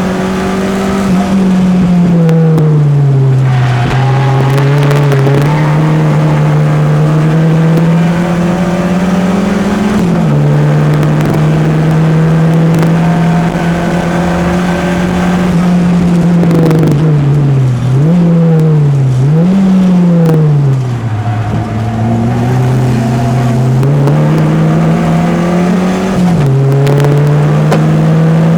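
Peugeot 205 engine running hard at high revs around a race circuit. The note drops sharply about four seconds in, at about ten seconds and again near the end as gears change. Around two-thirds of the way through the revs dip and rise twice in quick succession before climbing again.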